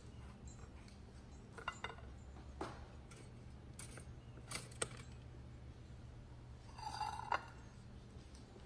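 Light kitchen clatter: a few scattered clinks and knocks of a spatula and plates on a counter, the loudest a short ringing clink about seven seconds in, over a steady low hum.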